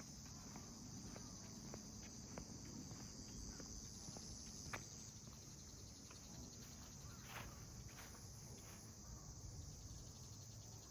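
Faint, steady high-pitched insect chorus, with a few soft scattered clicks.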